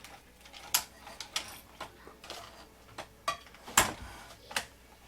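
Scattered sharp clicks and knocks of hard plastic parts being handled as the rubber crawler track is worked off a radio-control excavator model, the loudest knock a little before the end.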